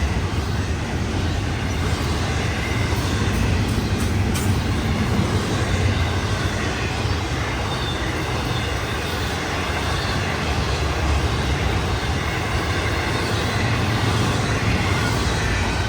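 Mixed freight train of tank cars, hoppers, box cars and intermodal containers rolling past, a steady low rumble of wheels on rail with a few faint clicks about three to four seconds in.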